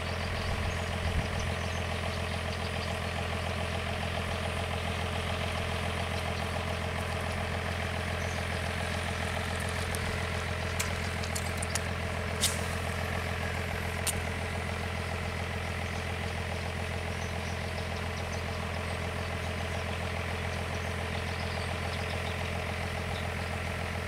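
An engine running steadily at idle, an unbroken low drone. A few sharp clicks come about halfway through.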